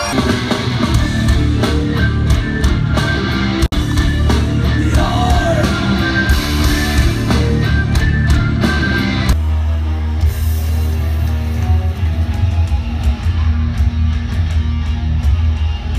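A heavy metal band playing live, recorded loud from inside the crowd: distorted guitars and drums with some singing. There is a brief dropout about four seconds in, and the sound changes abruptly about nine seconds in.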